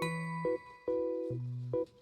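Background music: soft chiming keyboard notes over a slow bass line, a few notes a second.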